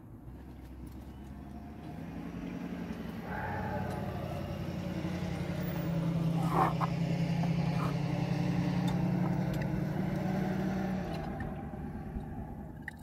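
A motor vehicle's engine passing by, growing steadily louder to a peak in the middle and then fading away. A single short sharp knock comes just past the middle.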